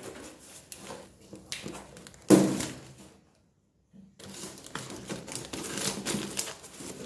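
Scissors cutting the plastic strapping on a cardboard box, with a loud sharp snip about two seconds in, followed by crackly cardboard and plastic rustling and clicking as the box is handled.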